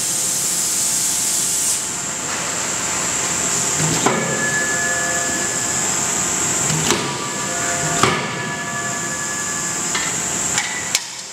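Sharp metal clanks about four, seven and eight seconds in and again near the end, each leaving a ringing metallic tone, over a steady loud hiss.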